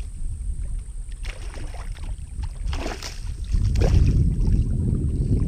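Water splashing and sloshing beside a kayak as a hooked traíra is brought alongside, over a low rumble that grows louder after about three and a half seconds. A few short sharp splashes or knocks come about a second, three seconds and four seconds in.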